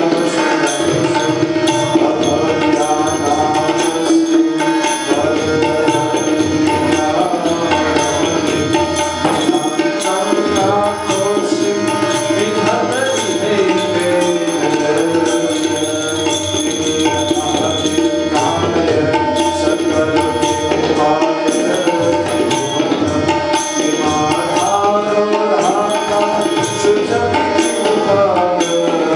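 Bhajan music: tabla drumming under a harmonium melody, playing continuously.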